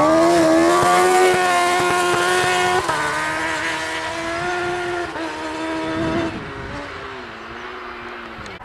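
Rally buggy's engine at high revs as it accelerates away, rising in pitch at the start and shifting up about three seconds in and again about five seconds in. After the second shift it fades into the distance.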